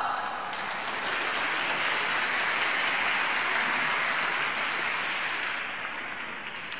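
Audience applauding, swelling in the first second, holding steady, then dying away near the end.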